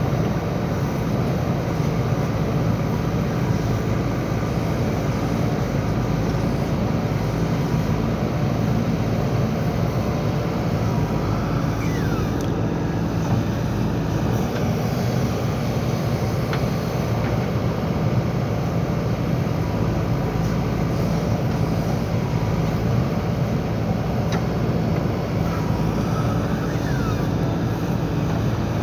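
JCB backhoe loader's diesel engine running steadily under work, an even low drone that holds level throughout.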